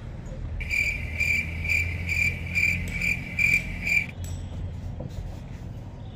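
Insect chirping in an even rhythm, about two chirps a second, over a low steady hum. The chirping stops about four seconds in.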